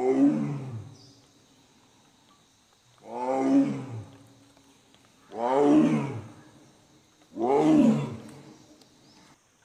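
Bengal tiger roaring: four loud, pitched roars, each about a second long and two to three seconds apart.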